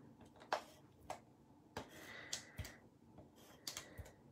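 Faint, scattered clicks and taps of paper-crafting work: card-stock pieces and a small handheld adhesive applicator handled and pressed on a hard tabletop.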